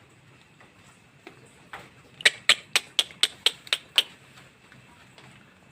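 A quick run of about eight sharp clicks, roughly four a second, starting about two seconds in.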